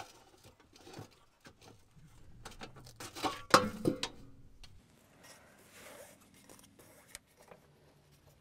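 Clicks and knocks of the excavator's air cleaner housing being opened by hand, with a sharp metal clatter about three and a half seconds in, then soft rubbing as the large air filter element is gripped and worked loose in its housing.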